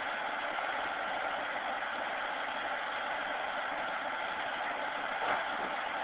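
A backhoe's engine running steadily, heard through a cell phone microphone as a flat, even hiss, with one short knock a little after five seconds in.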